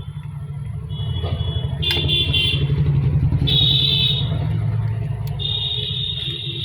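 A motor vehicle's engine rumbling as it passes close by, swelling and then fading, with several high-pitched horn honks over it.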